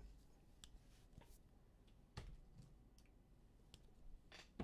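Near silence with a few faint, scattered clicks and taps of trading cards being flipped through in the hands, the most distinct about two seconds in.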